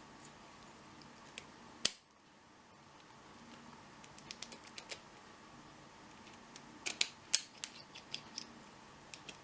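Scattered small sharp clicks and taps of hard objects being handled, with one loud click about two seconds in and a quick run of clicks around seven to eight seconds.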